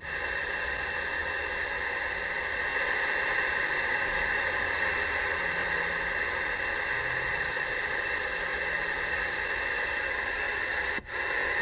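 CB radio speaker putting out steady hissing static with a steady whine in it. It cuts out for a moment near the end.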